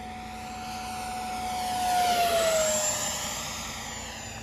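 80mm electric ducted fan of an FMS F-86 Sabre RC jet whining as it makes a pass. It grows louder until about two seconds in, then its whine drops in pitch as it goes by and fades away.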